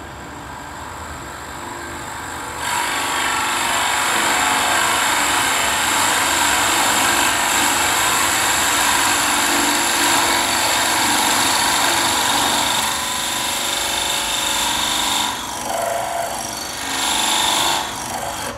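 Drill press boring a hole through a small wooden block. The motor runs quietly at first; about three seconds in the bit bites into the wood with a loud, steady cutting noise that eases off after about twelve seconds. One more short spell of cutting follows before it stops near the end.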